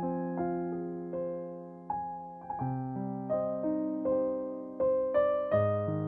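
Background music: solo piano, notes and chords struck about twice a second and left to fade.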